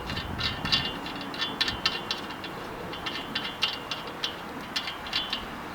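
Metal tubes of a hammock stand clinking and rattling as a section is pulled apart: a quick series of sharp clinks with a faint metallic ring, in two spells with a short lull between them.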